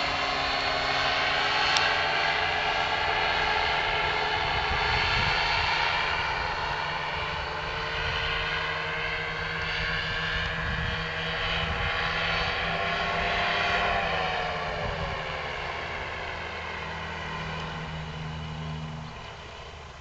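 Powered parachute's propeller engine droning overhead. About fourteen seconds in its pitch drops and the drone dies away toward the end: the engine is brought down for an engine-out landing.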